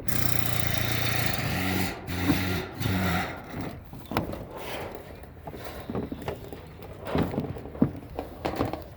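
A motor runs steadily for about two seconds, then starts and stops a few times. Scattered knocks and scrapes follow.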